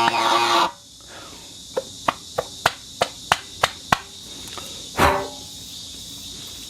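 Rubber plate whistle buzzing with a reedy, pitched vibration that cuts off under a second in. A run of about nine sharp clicks follows, roughly three a second, then one brief falling squeak.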